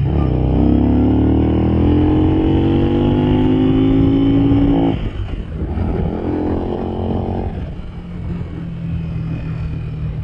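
Motorcycle engine heard through a microphone inside a full-face helmet, pulling hard under acceleration with its pitch rising for about five seconds. The engine note cuts off suddenly, rises again briefly, then fades into steady wind and road noise.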